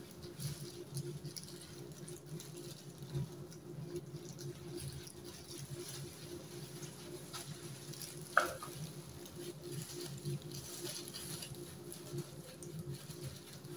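Faint rustling and scratching of plastic-gloved hands and a hair-dye brush working through wet hair, over a steady low hum. There is one brief louder sound about eight seconds in.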